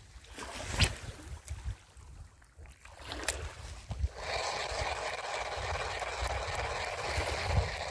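A fishing reel being cranked, a steady whirring that starts about four seconds in as the lure is retrieved. Before it there are low wind or handling rumbles and a couple of sharp knocks.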